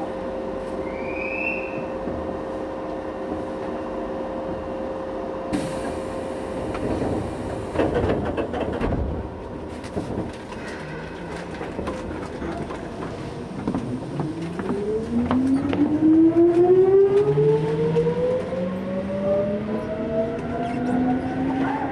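Keisei 3400 series electric train pulling out of a station. Over a steady equipment hum comes a sudden hiss of air and a few knocks, typical of the doors closing, and then the traction motor and gear whine rises steadily in pitch as the train accelerates.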